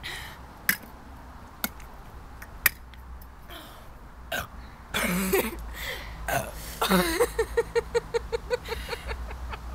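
A few sharp clicks of plastic shot glasses being set down, then burps after gulping fizzy cola shots, starting about halfway through, with a quick stuttering run of giggles and burps near the end.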